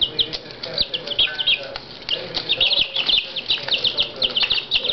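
A group of Silkie chicks peeping busily: many short, high, downward-falling peeps, several chicks at once and overlapping with little pause.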